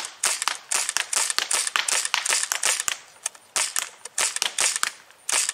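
Daisy Model 74 CO2 semi-automatic BB rifle fired in quick succession: a rapid string of sharp pops, several a second, with a brief pause about three seconds in.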